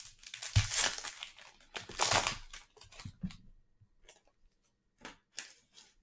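A 2021 Bowman Draft card pack's wrapper being torn open and crinkled, with several sharp tearing rips in the first three seconds. Then only a few faint rustles and clicks follow.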